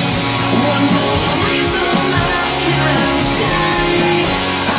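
Live rock band playing loudly: electric bass and electric guitar, with singing.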